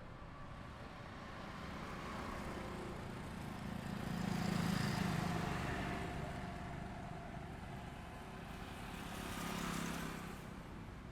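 Two vehicles passing by on a highway over a steady traffic hum. The first builds, passes about midway and fades; a second, quieter one passes near the end.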